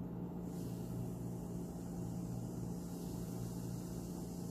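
White bread triangles sizzling as they fry in hot ghee in a frying pan, with a steady hiss that starts about half a second in as the bread goes into the fat. A steady low hum lies under it.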